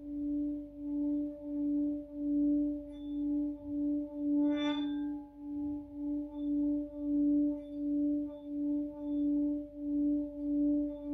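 Tibetan singing bowl rubbed around its rim, holding one steady low ringing tone that swells and fades about twice a second. A brief buzzing flutter of higher tones comes about halfway through.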